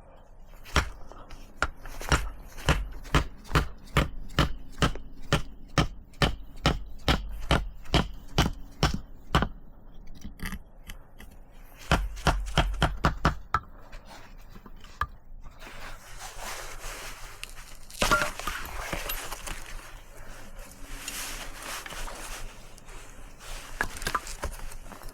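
Firewood being chopped or split with a blade: a fast run of sharp, evenly spaced strikes, about two or three a second, a pause, then a shorter run of strikes. In the second half the strikes give way to scraping and rustling of wood being handled.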